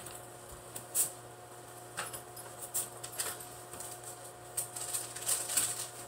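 Faint, scattered rustles and clicks of a wallet and paper being handled from across the room, thickest about two-thirds of the way through, over a steady low hum.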